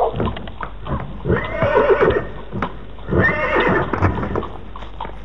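Horse hooves clip-clopping on a tarmac lane, with a horse whinnying twice, each call about a second long with a wavering pitch.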